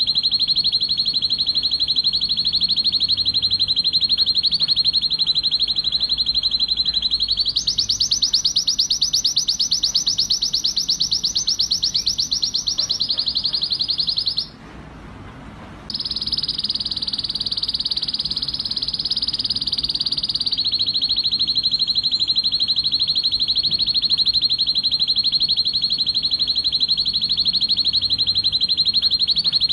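Male red-factor canary singing a long run of rapid trills. About seven seconds in it shifts to a higher trill, breaks off for about a second and a half near the middle, then resumes.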